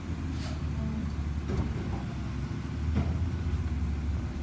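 Recycling truck engine running steadily in a low rumble, with a few short knocks.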